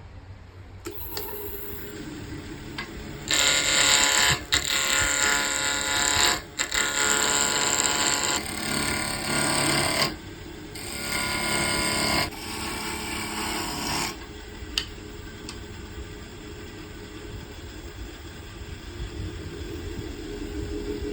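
Wood lathe running steadily, with several spells of a tool worked against the spinning wood between about 3 and 14 seconds in, louder and rougher while it bites.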